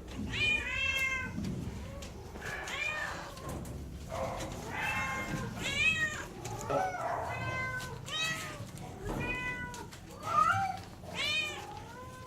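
Shelter cats meowing over and over, roughly one call a second, with some calls overlapping one another.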